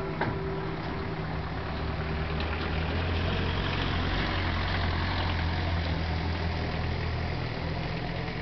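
A motor vehicle passing by, its low engine drone swelling through the middle and easing off near the end. Under it, the lingering hum of church bells dies away over the first few seconds.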